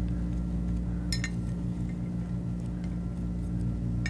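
A single light, ringing clink of tableware against a ceramic plate about a second in, as toppings are moved onto it, with a fainter tap near the end, over a steady low hum.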